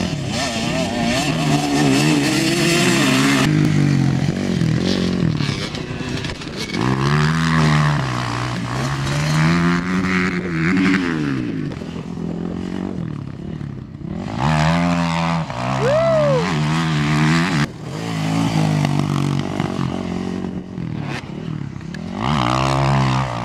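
Dirt bike engines revving hard and dropping back over and over, the pitch climbing and falling with throttle and gear changes.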